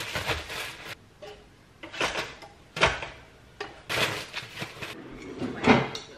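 Plastic bread bag crinkling as slices are taken out and the bag is twisted shut, with a few sharp kitchen knocks in between, the sharpest about three seconds in.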